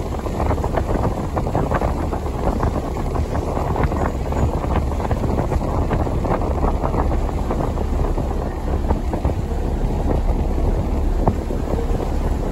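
Small passenger ferry under way: a steady low engine rumble and the rush of its wake, with wind buffeting the microphone in constant crackling gusts.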